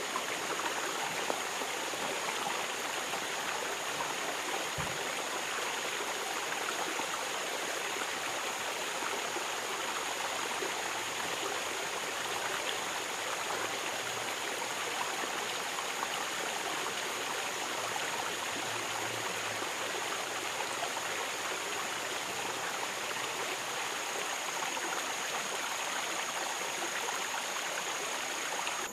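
Steady rush of running water, like a hillside stream or irrigation channel, with a constant thin, high-pitched insect whine over it.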